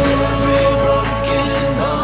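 Background music: a song with a steady low bass note under sustained melody notes.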